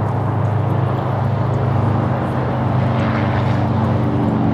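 A loud, steady engine drone with a low hum.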